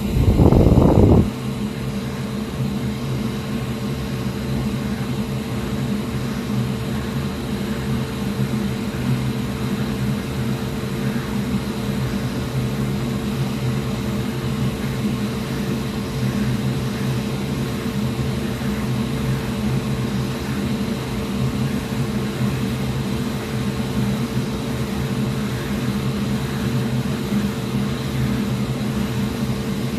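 Steady hum of a fan or small motor, with several steady tones over an even rush. It opens with a louder, lower rush lasting about a second.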